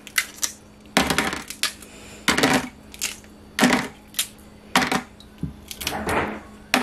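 Cooked crab shell cracking and snapping as the legs are broken off the body by hand: a string of sharp cracks, roughly one or two a second.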